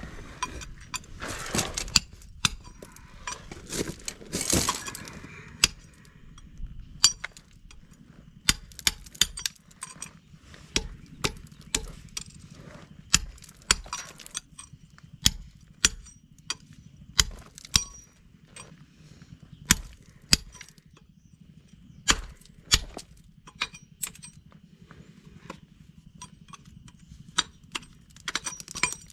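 Wall-building work: irregular sharp knocks and clinks, roughly one every second, some with a short metallic ring, over a low steady hum. The first few seconds are busier.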